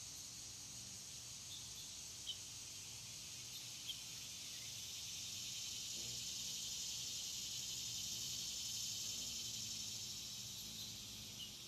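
Steady high-pitched insect chorus that swells louder in the middle and then eases, with a few short faint bird chirps scattered through it.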